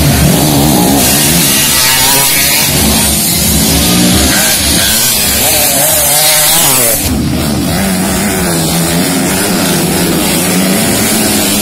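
Dirt bike engines revving hard, the pitch rising and falling with each throttle change through the corner. About seven seconds in, the sound changes abruptly to a slightly quieter, steadier drone of several bikes running together.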